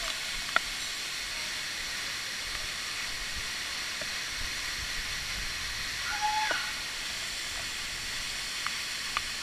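Steady hiss of rushing water from a cascading stream and waterfall, with a few light clicks and a short high-pitched sound about six seconds in.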